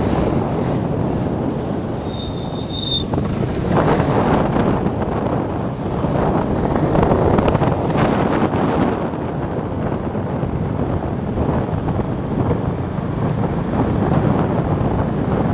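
Wind rushing over the microphone of a scooter-mounted camera, mixed with the running single-cylinder engine of a Vespa GTS 250 scooter and surrounding traffic, while riding at about 30 km/h. The noise surges and eases with the ride. A short high-pitched tone sounds about two seconds in.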